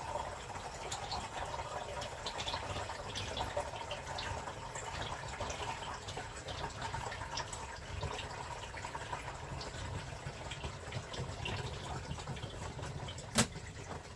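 Water splashing and trickling in the wash tub of a twin-tub portable washing machine during its rinse, with many small scattered drips and splashes. A single sharp plastic click just before the end.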